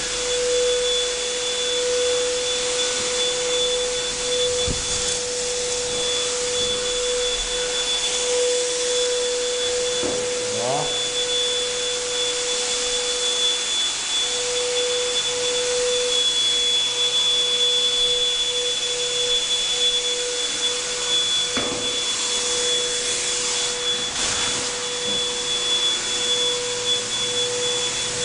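Air blower running steadily to blow dust off a wall: a continuous rushing hiss with a constant motor whine.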